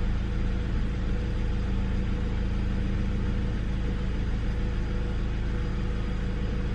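A steady low machine hum with a few even, unchanging tones.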